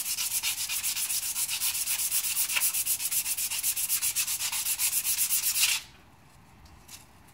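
Emery cloth strip pulled rapidly back and forth around a steel truck axle spindle, shoe-shine style, in even rasping strokes, cleaning the surface where the wheel seal rides. The rubbing stops suddenly about six seconds in.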